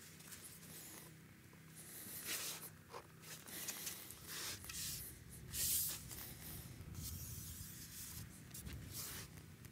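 Faint rustling and rubbing as hands handle the spray drone's folding propeller blades and arms, with a few short hissy brushes, the loudest a little past the middle.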